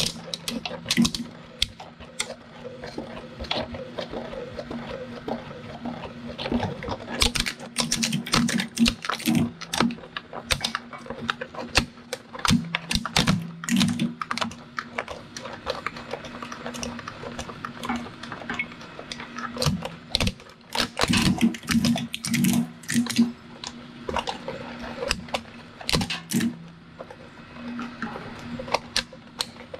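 Industrial shredder running with a steady motor hum while its cutter blades catch and scrape at two pairs of SkyMaster binoculars, giving irregular flurries of sharp cracks and clicks as the binocular bodies resist being pulled in.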